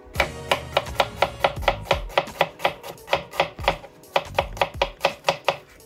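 Folding pocket knife slicing an onion on a bamboo cutting board: a fast, even run of blade strokes hitting the board, about four a second.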